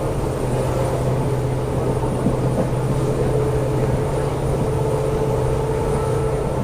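WDP4D diesel locomotive's EMD 16-710 two-stroke V16 engine working steadily while hauling a passenger train, a continuous low drone with a steady hum, mixed with the train's running noise.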